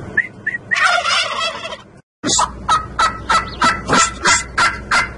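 Domestic turkey toms gobbling. One long, rattling gobble comes about a second in; after a brief break there is a steady run of quick gobbling calls, about three a second.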